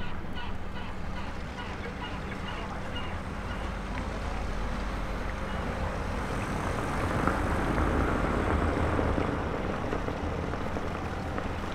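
Fishing boat's engine running with a steady low drone under a haze of wind noise, swelling a little about seven seconds in.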